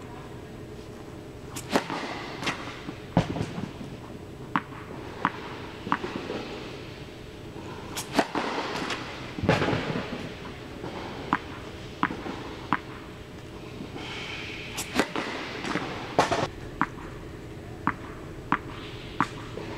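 Tennis ball bouncing on the court and struck by a racket on serves, heard as a string of irregular sharp pops that ring briefly in a large indoor tennis hall.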